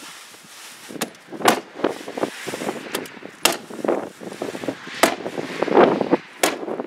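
Hammer tacker driving staples through roll roofing into a wooden wall: about six sharp, irregularly spaced strikes, with duller handling sounds between them.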